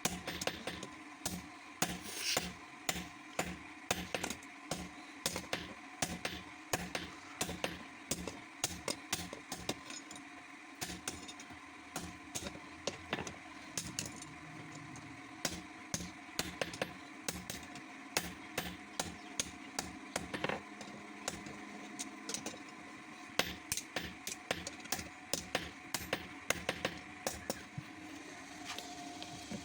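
Hammer blows on metal being forged, a long series of sharp strikes two or three a second with brief pauses, over a steady hum.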